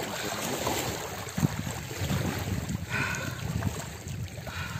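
Wind rumbling on the microphone over shallow sea water splashing around a person wading, with a brief sharp splash about one and a half seconds in.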